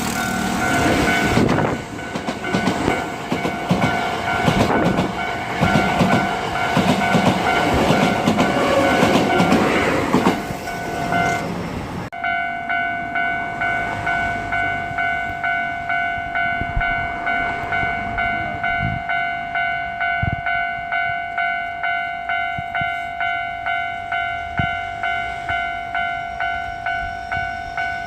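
An electric commuter train runs over a railway level crossing, wheels clattering on the rails, while the crossing's warning bell rings. About twelve seconds in the train noise cuts off suddenly and the crossing bell rings on alone, about two strikes a second.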